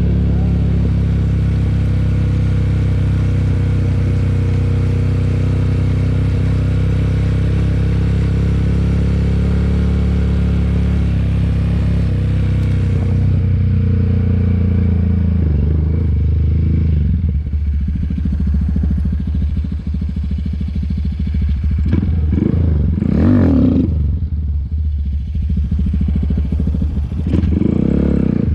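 Honda Grom's single-cylinder 125 cc engine running steadily. Later it changes, with two louder revving surges near the end.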